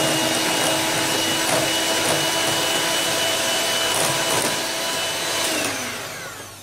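Electric hand mixer running steadily with its beaters whisking cake batter in a glass bowl, with a steady motor whine. About five and a half seconds in it is switched off and the whine falls away as the motor spins down.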